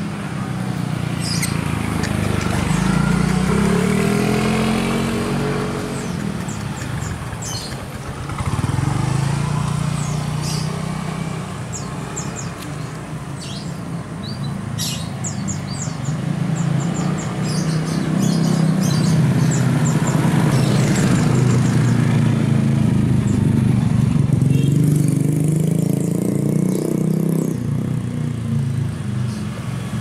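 Passing road traffic: motor vehicle engines swelling and fading several times, their pitch rising and falling, with short high bird chirps over them.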